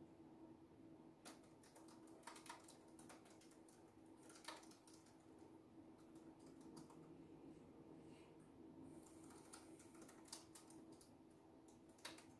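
Faint, irregular keystrokes on a laptop keyboard, starting a little over a second in, over a low steady hum.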